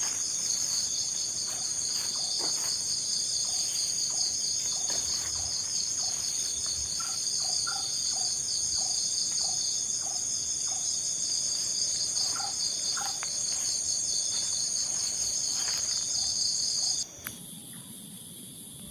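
Dense insect chorus: a steady, high-pitched shrill trilling that cuts off suddenly about seventeen seconds in. Through the middle runs a string of short, evenly spaced lower calls, about two or three a second.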